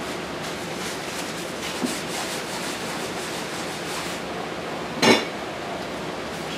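Steady rushing background noise of a working kitchen, with one short clank of kitchenware about five seconds in.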